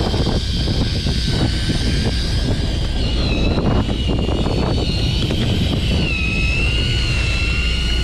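Fishing boat under way: a steady low engine rumble with wind and water noise, overlaid by a high whine that wavers in pitch.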